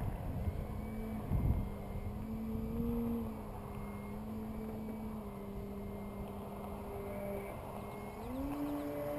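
Electric motor and propeller of an Extreme Flight Laser RC aerobatic plane (Motrofly 3615 625KV on a 5S pack) droning overhead at a steady pitch, which climbs near the end as the throttle comes up. Wind rumbles on the microphone, with a gust about a second and a half in.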